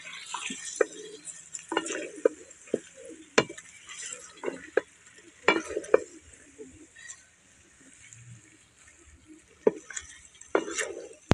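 A spoon stirring chicken feet in a metal karahi, scraping and knocking irregularly against the pan, with a frying sizzle underneath. The stirring eases off briefly about two-thirds of the way through.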